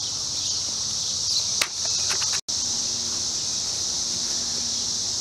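Steady high drone of insects, with a few light clicks about a second and a half in. The sound drops out for an instant about halfway through.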